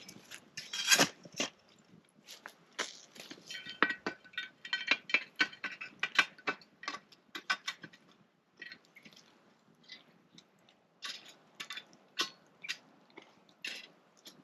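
Irregular clicks, clinks and knocks from metal camp cooking gear being handled, some with a short metallic ring. They come thick in the first half and more sparsely after.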